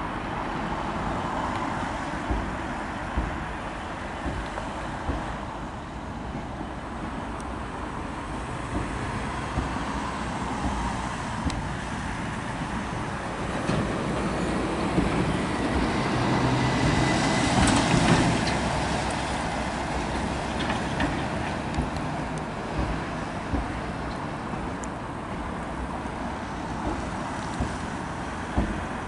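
Southern Class 455 electric train rolling over a steel girder railway bridge: a steady rumble that swells to its loudest a little past halfway, with occasional brief knocks, mixed with road traffic.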